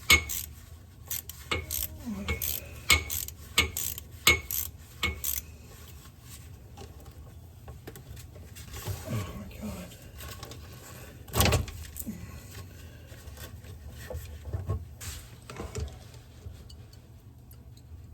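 Hand tools clinking and clicking against metal parts while a Volkswagen Vanagon's old fuel pump and its hose are worked loose. A quick run of sharp clinks, about two or three a second, comes first, then scattered quieter knocks with one louder knock about two-thirds of the way through.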